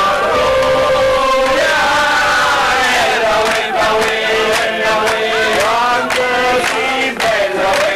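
A group of voices singing a traditional folk song together in chorus, holding long notes and sliding between pitches.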